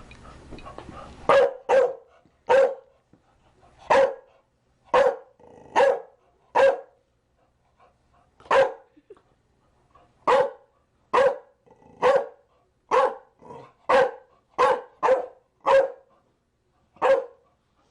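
Chow Chow barking repeatedly: about seventeen short, single barks, spaced irregularly half a second to two seconds apart, starting about a second and a half in.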